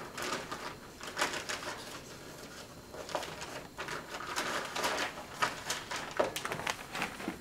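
Plastic and paper wrapping of a sterile catheterisation pack crinkling and rustling in short, irregular bursts as the pack is pulled from its plastic bag and set down on a steel trolley.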